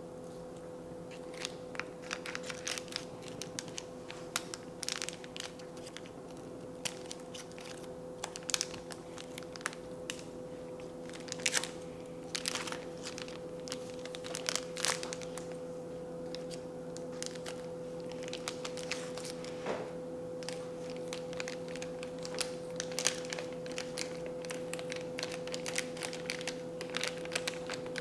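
Scissors snipping and a packet of powdered baking mix crinkling and rustling as it is being cut open, in irregular clicks and crackles over a steady hum.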